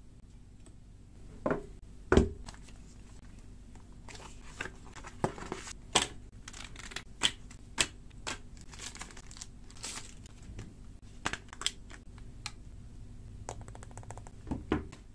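Paper inserts, cards and a plastic sleeve from a smartphone box being handled by hand: crinkling and rustling broken by a string of sharp knocks and taps, the loudest two about one and a half to two seconds in.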